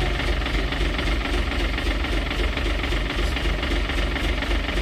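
Truck engine idling steadily with a low, even clatter.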